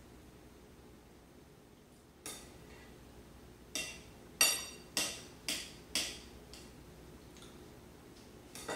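A metal fork clinking against a plate while cutting soft cheese. There are about six sharp clinks from about two seconds in until past the middle, and some ring briefly.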